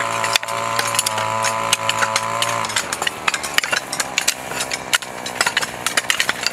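Garden hoes chopping into dry soil: a dense run of short, sharp strikes and scrapes. Under the first half a steady motor hum runs, then cuts off about two and a half seconds in.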